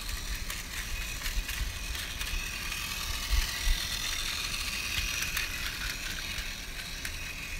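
Plarail battery-powered toy train running on plastic track: a steady whir of its small motor and gears with light, rapid clicking. Two soft low bumps come a little past the middle.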